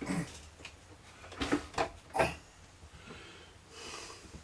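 Objects being handled on a workbench: three light knocks or clicks about a second and a half to two and a quarter seconds in, then a soft brief rustle near the end.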